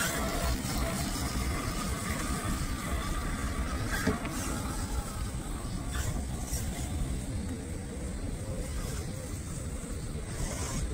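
Road traffic passing: a steady rumble and tyre noise from cars on a road. Under it is a faint whine from a scale RC crawler's electric motor as it drives through grass, with a couple of light clicks a few seconds in.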